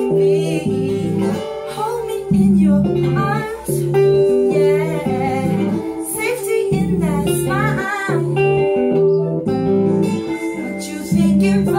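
An electric guitar and an acoustic guitar play together, the chords changing about once a second, while a voice sings a wavering melody over them.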